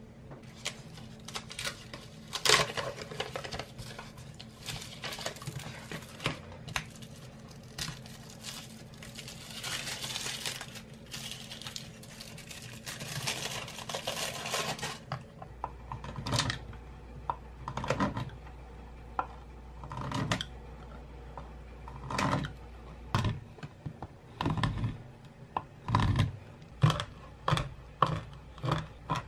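Crinkling of the paper wrapper and aluminium foil as a Meiji white chocolate bar is unwrapped by hand. About halfway through it gives way to a kitchen knife chopping the white chocolate on a wooden cutting board: separate knocks of the blade on the wood, coming faster near the end.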